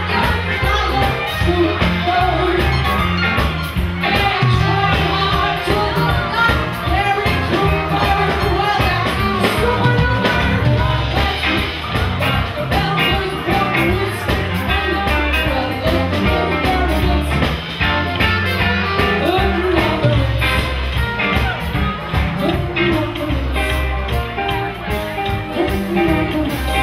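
Live band music with a woman singing into a microphone, drum kit and bass keeping a steady beat underneath.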